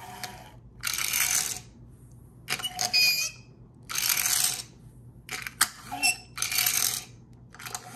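A small plastic McDonald's Happy Meal toy car (Cave Lightning McQueen) whirring and ratcheting in five short bursts about a second and a half apart. Each burst is its geared motor being wound as the car is rolled along the countertop.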